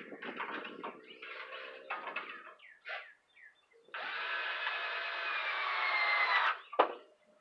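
Power drill driving a screw into lumber: a steady whir that runs for about two and a half seconds with its pitch sinking slightly, then stops sharply. It is followed by a single knock, and there are scattered clicks and handling knocks before it.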